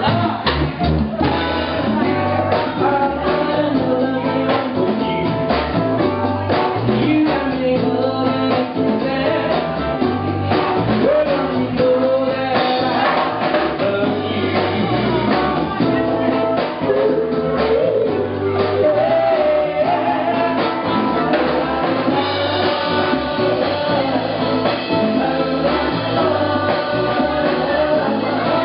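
Live band playing a song: male vocals over strummed ukulele and guitar, with bass guitar and a drum kit keeping a steady beat.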